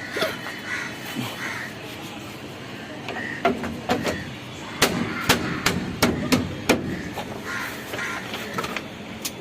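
A quick run of about eight sharp knocks over some three seconds, loudest in the middle, as parts of a dismantled washing machine are struck.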